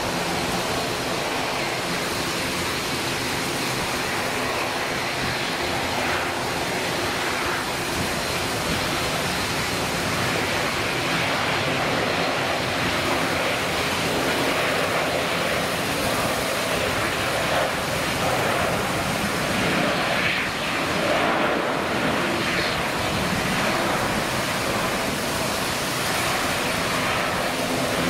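Steady jet airliner engine noise mixed with wind and rain hiss, with a faint steady engine hum near the start and again near the end.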